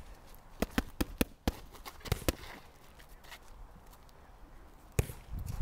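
Boxing gloves smacking into focus mitts in a quick combination: about seven sharp smacks in the first two and a half seconds, then one more near the end.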